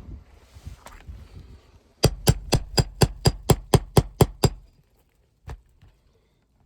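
Roofing hammer striking a nail puller in a quick run of about eleven blows, roughly four a second, driving it under a shingle nail's head to pull the nail. A single knock follows about a second later.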